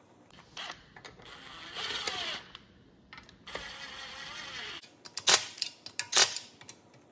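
Milwaukee M18 cordless driver running the oil pan bolts into a Subaru engine block. It comes in short trigger runs whose pitch falls as the motor slows, followed by several sharp, loud clicks or bursts near the end as the bolts seat.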